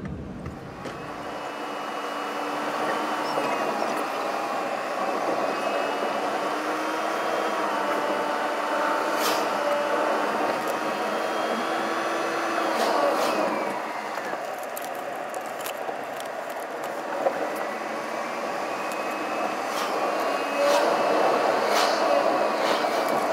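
Car driving, heard from inside the cabin: steady engine and road noise, with the engine note drifting gently up and down as the speed changes, and a few sharp clicks.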